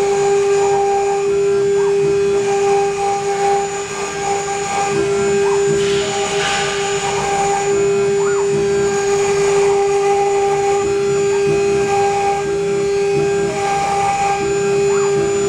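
Changsheng spindles of a six-head CNC router running together with a steady high whine as the bits engrave a wooden sheet, over a hiss of cutting. The hiss rises briefly about six seconds in.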